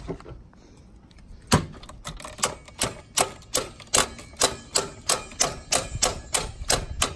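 Metal pliers tapping repeatedly on the shifter cable linkage at the transmission: a steady run of sharp clicks, about two or three a second, starting about a second and a half in.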